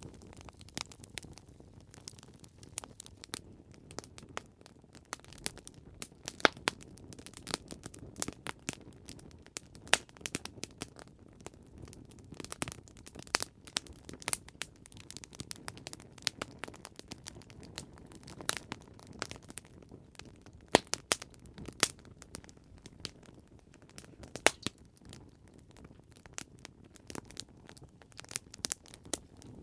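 Wood campfire crackling, with many irregular sharp pops over a soft, steady low rush.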